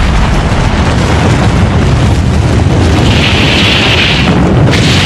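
Atomic-bomb explosion sound effect: a loud, continuous deep rumble of the blast, with a hissing rush joining about three seconds in and fading about a second later.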